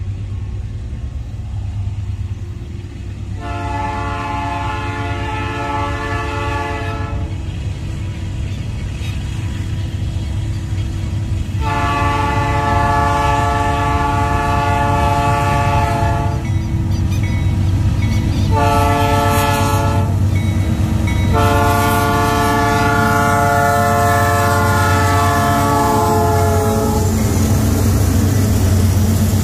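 Diesel freight locomotive sounding its multi-tone air horn in the long, long, short, long pattern of a level-crossing warning as it approaches. Under the horn, the engine and train rumble grows steadily louder as it nears.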